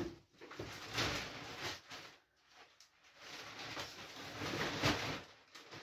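Digging and scraping rotten floor debris and ballast out from under the floor inside a steel narrowboat hull, in irregular scrapes and rustles.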